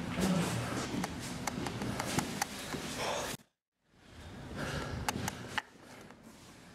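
Footsteps on a hard floor with clothing rustle and camera handling noise. The sound drops to dead silence for about half a second a little past the middle, then comes back quieter, with a few more footfalls.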